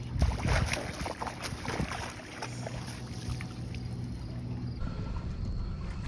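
Walleye splashing at the surface and being scooped into a landing net, a quick run of splashes in the first two seconds, then water draining from the lifted net over a steady low hum.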